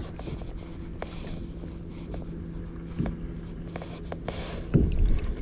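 Light splashes of water and small knocks against a kayak hull while a trout is held in the water beside it, over a steady low hum. A louder knock comes near the end.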